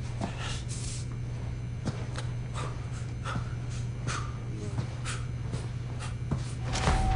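A man breathing heavily and raggedly, a breath roughly every second, over a steady low hum. A louder rush of noise comes near the end.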